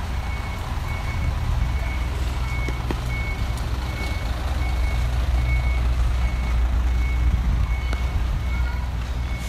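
A vehicle's reversing alarm: a single high electronic beep repeating evenly a little under twice a second, stopping near the end, over the steady low rumble of a heavy vehicle's engine running close by.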